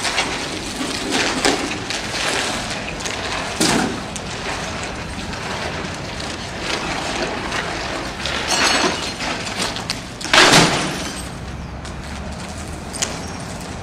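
Broken windshield glass crackling and scraping as it is walked on and handled, with two louder impacts, one about a third of the way in and a heavier one about three-quarters of the way in.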